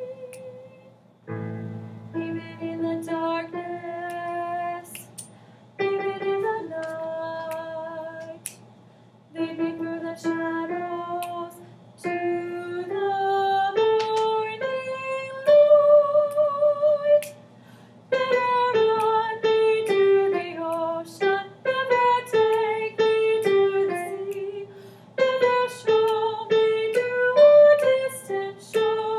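Singing with piano accompaniment: a woman's voice carries a slow melody in phrases with short breaks between them, over chords played on a digital piano.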